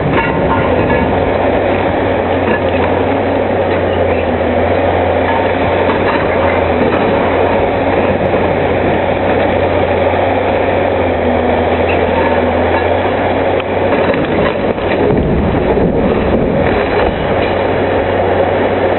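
Liebherr 944 demolition excavator working its hydraulic crusher jaws on concrete: a steady low engine hum under continuous noisy clatter of concrete being broken. The hum drops away about two thirds through, and a few sharp cracks follow.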